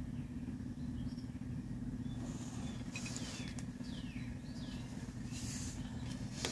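Steady low electrical hum from a guitar amplifier picking up loose, exposed humbucker wiring. A few faint scratches and squeaks come in the middle as the wires are handled.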